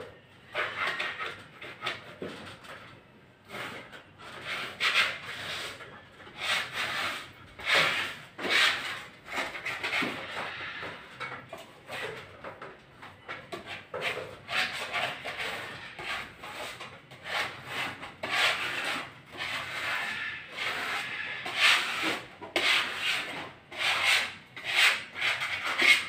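Old wallpaper being scraped off a wall with a hand scraper: rasping scraping strokes in an uneven rhythm, about one or two a second.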